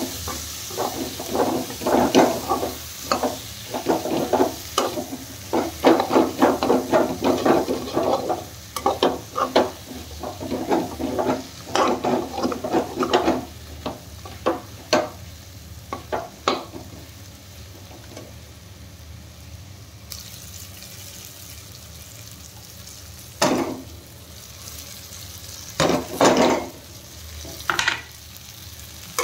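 A slotted spatula stirs and scrapes potatoes and tomatoes frying in a metal pan, over a sizzle. The strokes come thick and fast through the first half, then thin out to a quiet stretch of sizzling with a few single scrapes near the end.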